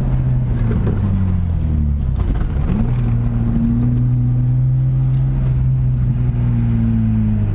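Car running on a BimmerWorld race exhaust with resonator, loud: the engine note drops for a couple of seconds, climbs quickly under acceleration, holds steady, then falls away again near the end.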